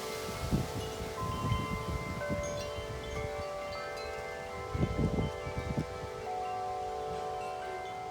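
Wind chimes ringing in the wind, many tones overlapping and ringing on. Gusts buffet the microphone about half a second and again about five seconds in.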